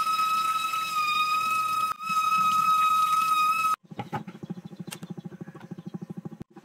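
Kitchen tap running onto a bunch of green onions in a steel sink, the flow carrying a steady high whistle from the tap. It cuts off abruptly a little past halfway and gives way to a quieter, fast soft pattering with a few sharp clicks.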